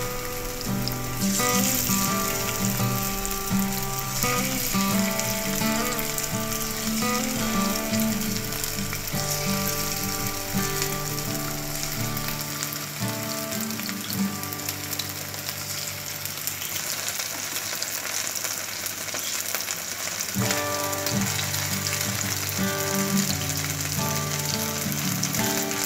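Chicken breast strips frying in a little oil in a nonstick frying pan, sizzling steadily, with background music playing alongside.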